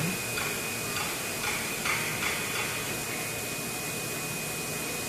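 Steady machine noise: an even hiss with a constant high-pitched whine, and a few light clicks and knocks in the first two and a half seconds.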